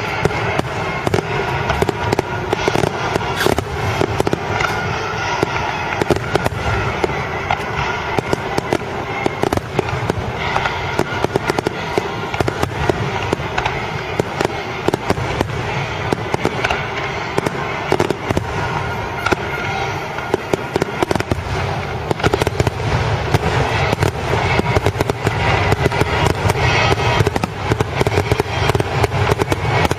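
Fireworks exploding in a rapid, dense string of bangs and crackles with almost no pause between them.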